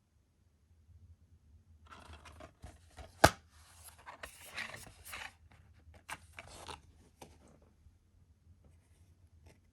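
Handling of a plastic DVD case: scraping and rustling, with one sharp click about three seconds in, then a few faint ticks.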